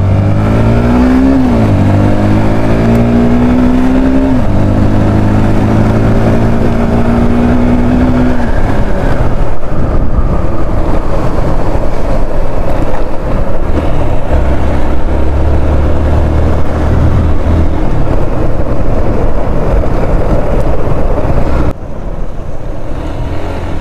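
Yamaha motorcycle engine accelerating, its pitch climbing and dropping at two quick gear changes in the first few seconds, then pulling steadily in the next gear. From about eight seconds in, the riding wind rushes loudly over the microphone above a low engine hum, and it eases off near the end as the bike slows.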